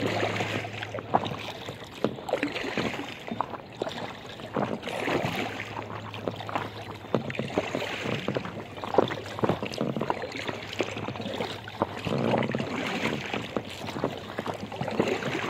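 Water splashing and lapping around an inflatable kayak as it is paddled, with recurring surges from the paddle strokes.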